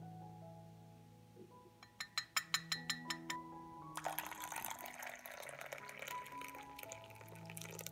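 Soft background music with slow, held notes. About two seconds in comes a quick run of sharp clicks, then a steady hissing rush through the second half.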